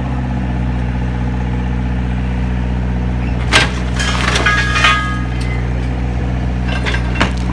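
EX55 excavator's diesel engine running steadily, with concrete cracking and crunching in the jaws of a mechanical concrete pulverizer about halfway through, and another sharp crack near the end.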